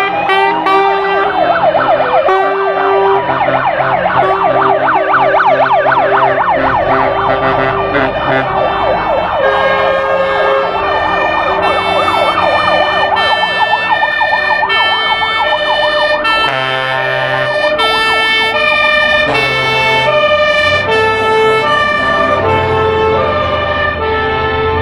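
Sirens and air horns of several fire engines driving past in a line. In the first half, fast yelping and wailing sirens overlap; later, mostly air-horn blasts at several pitches sound in a repeating pattern.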